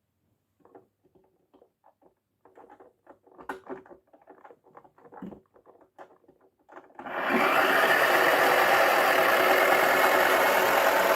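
Faint plastic clicks and knocks as a toy washing machine is handled and loaded. About seven seconds in, its small motor switches on and runs with a loud, steady mechanical whirr.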